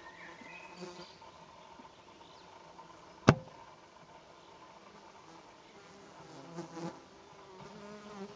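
A flying insect buzzing close to the microphone, faint and wavering, louder for a moment near the end. One sharp click sounds about three seconds in.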